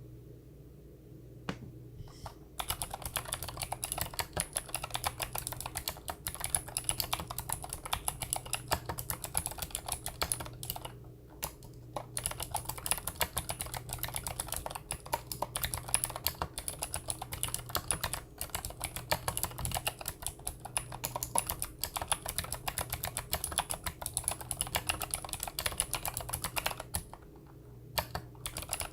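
Typing on a Monstargear Ninja87 mechanical keyboard with Gateron Blue clicky switches: fast, continuous key clicks. There are brief pauses about eleven seconds in and again near the end.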